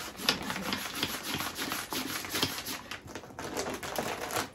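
Plastic hand pump on a vacuum storage bag's valve, worked up and down in quick repeated strokes, about two a second, drawing the air out of the bag.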